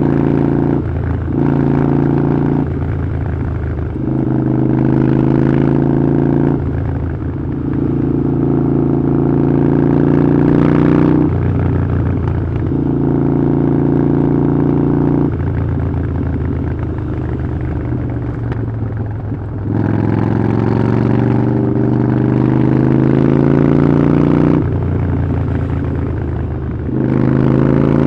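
Harley-Davidson Iron 883's air-cooled V-twin running through a Vance & Hines exhaust while riding. The engine note climbs and sags with the throttle, broken by short dips several times as it changes between pulls.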